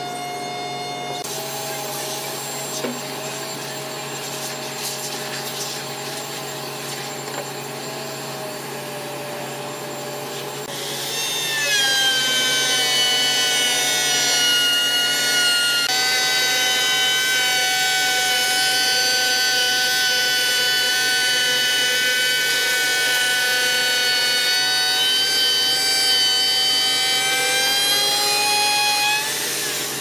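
Handheld electric plunge router spinning up with a rising whine about eleven seconds in, then running at a steady high whine as it trims the edge of a wooden cabinet top, and winding down near the end. Before it starts, a lower steady machine noise runs.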